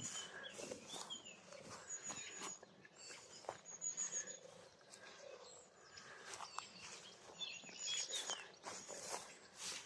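Outdoor birdsong: small birds give short high chirps and whistles, and several soft low purring phrases fit the song of a European turtle dove.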